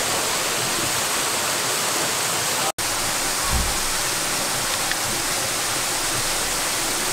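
Waterfall rushing steadily, an even hiss of falling water. It cuts out for an instant just under three seconds in, and there is a brief low bump about half a second later.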